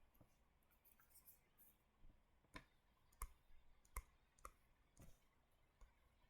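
Faint, irregular clicks and taps of handwriting, about nine over the stretch, with a brief scratchy sound about a second in.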